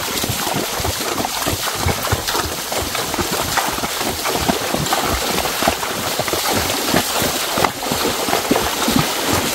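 Floodwater rushing in a strong current, with irregular splashing.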